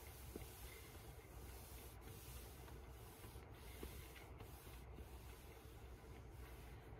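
Near silence: room tone with a steady faint hiss and low hum.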